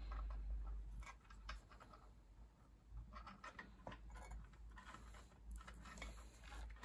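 Faint scattered clicks and rustles of hands working a wire and its connector, over a steady low hum.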